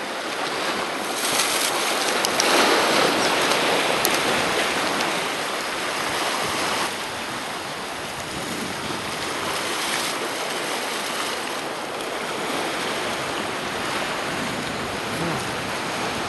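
Sea surf washing and foaming against rocks, with a louder surge about two seconds in and smaller swells after.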